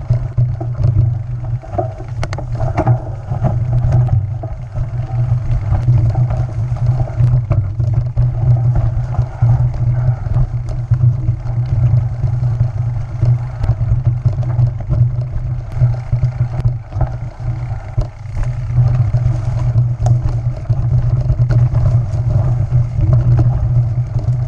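Mountain bike riding fast over a rough dirt trail, picked up by a camera on the handlebar: a loud, steady low rumble with frequent rattling clicks and knocks from the bike jolting over the ground.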